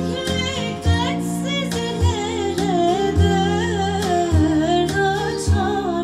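A woman singing with a warm voice and vibrato over instrumental backing, with sustained low notes and a low beat about once a second.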